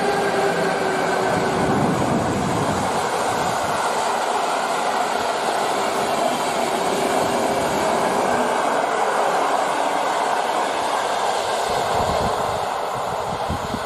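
Passenger train hauled by an electric locomotive passing close: a steady rolling noise of the wheels and coaches running over the track, with a faint whine. It eases off near the end as the last coach passes and draws away.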